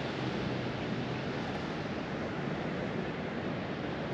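Ocean surf washing onto a sandy beach, a steady rush of waves, with some wind on the microphone.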